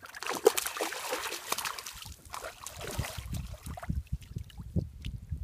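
Water splashing and sloshing as a hooked fish thrashes at the surface and is lifted out on the line, with a crackly splashing patch for the first two seconds, then irregular low thumps.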